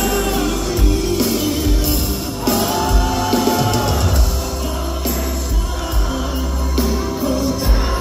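Live pop ballad performed by male singers with an orchestra: sung vocals through the hall's PA over sustained violins and a low drum beat about once a second.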